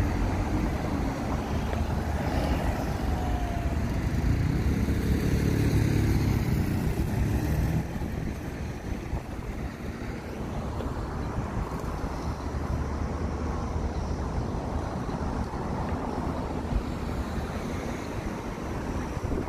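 City street traffic: cars passing on a multi-lane road. It is louder for the first eight seconds or so, then settles to a steadier, lower hum.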